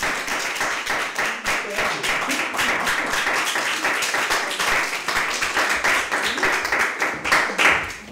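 A small audience applauding: many hands clapping steadily, stopping suddenly near the end.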